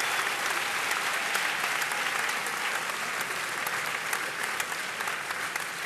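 Crowd in a hall applauding, a dense steady patter of many hands clapping that eases slightly toward the end.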